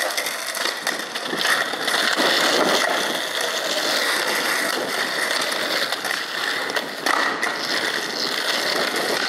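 Skateboard wheels rolling over rough asphalt: a steady gritty rolling noise, with a short knock about seven seconds in.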